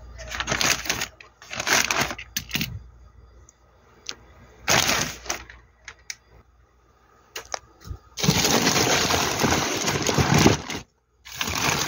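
Plastic delivery mailer bag crinkling and rustling as it is handled, in short bursts with a few sharp clicks, then a longer, louder stretch of rustling about eight seconds in as the contents are pulled out.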